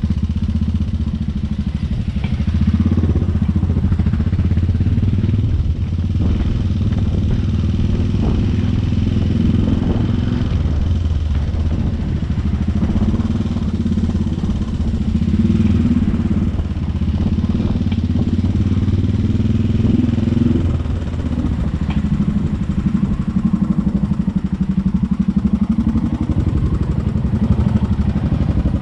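Suzuki GSX250 motorcycle engine running at low speed in a low gear, its pitch rising and falling a little with the throttle.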